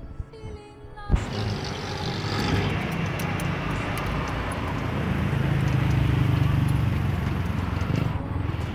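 Road noise heard from an open trisikad (pedal tricycle) on the move, with wind rushing on the phone's microphone. It swells to its loudest a little past the middle and eases near the end. A snatch of music plays in the first second.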